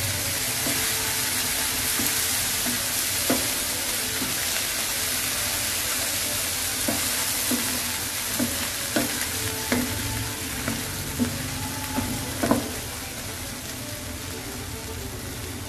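Corn kernels and green onions sizzling steadily in a stone-coated frying pan while being stirred, with the spatula knocking and scraping against the pan every second or so, more often in the second half.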